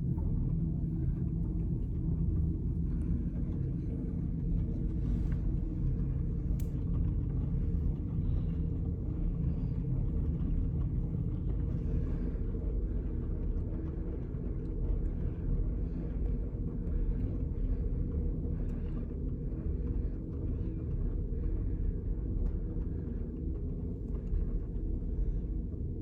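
Miele W1 front-loading washing machine running the start of its main wash with a full load of towels: a steady low rumble from the drum and motor, with faint swishes recurring about once a second in the second half.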